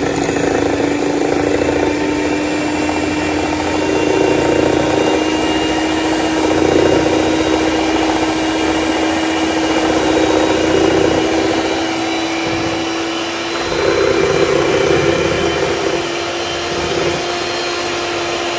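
Electric hand mixer running steadily, its whisk beaters whipping eggs and sugar in a glass bowl. The motor hum creeps slightly higher in pitch as it goes.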